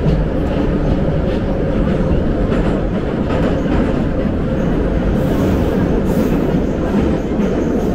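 St. Petersburg metro train heard from inside the carriage: the steady, loud rumble of the wheels on the rails and the car running along the track.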